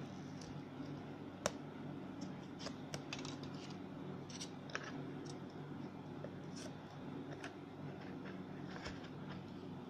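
Faint, irregular small clicks and scrapes of a thin pry tool working along the edge of a MacBook Air's display and bezel, over a steady low hum.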